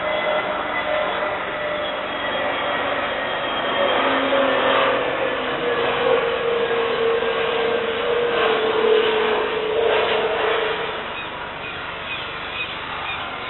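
Airbus A320neo's Pratt & Whitney geared turbofan engines on landing: a steady engine whine that slowly falls in pitch over a rushing jet noise. The rush swells in the middle, then eases off near the end.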